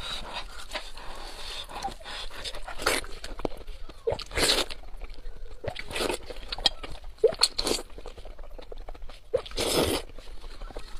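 Close-up wet eating sounds: meat of a braised sheep head being pulled apart by gloved hands, then sucked and chewed. Several loud, sudden slurps and sucks stand out among softer smacking.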